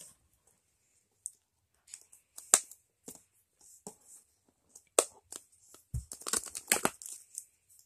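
Cardboard and plastic toy packaging being handled and pulled open by hand: scattered sharp clicks and crackles, with a busier run of rustling and tearing about six to seven seconds in.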